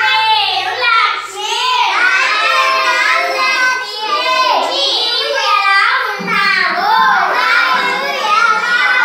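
A group of schoolchildren reciting together in a sing-song chorus, reading out phrases written on the blackboard.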